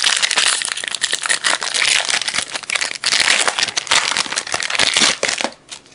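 Plastic foil wrapper of a trading card pack crinkling and crackling as it is opened. The sound dies down about five and a half seconds in.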